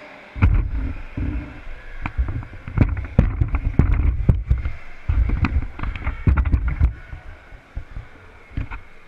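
Camera handling noise as the camera is moved: a loud low rumble and rubbing on the microphone, with repeated clicks and knocks. It starts about half a second in and dies down after about seven seconds.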